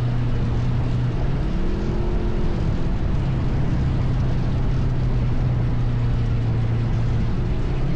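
ATV engine running steadily under way, its pitch rising briefly about a second and a half in and again at the end as the throttle opens.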